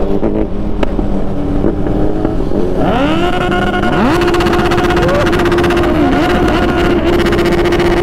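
Motorcycle engine on a ride, revving up a little after three seconds in and again a second later, then held at a steady high note with a brief dip midway. A steady low wind rush runs underneath.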